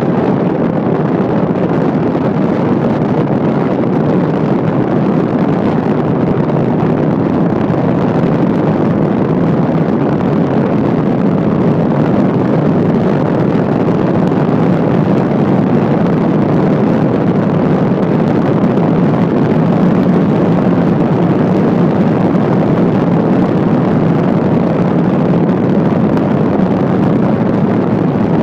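Steady road noise of a car driving at speed: a constant low rumble of tyres and engine with some wind, unchanging throughout.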